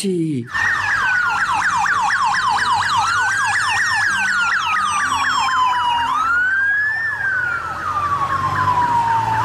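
Police motorcycle sirens sounding together: one in a fast yelp of several rising sweeps a second, the other in a slower wail that rises and falls, over a low steady hum. It starts about half a second in.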